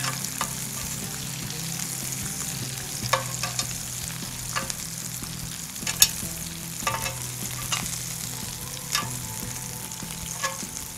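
Food sizzling in a pan on a stove, a steady frying hiss, with a spoon stirring and several sharp clinks of a utensil against the pan.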